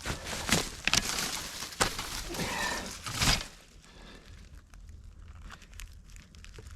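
Rustling, crackling and snapping of someone moving through brush and handling wood, with a few sharper knocks, for about three and a half seconds, then quieter with only a few light clicks.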